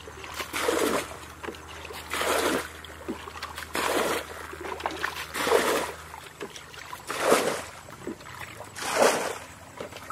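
Water being bailed out of a shallow muddy ditch with a plastic bucket: a rushing splash each time a bucketful is scooped and thrown, about every second and a half, six times.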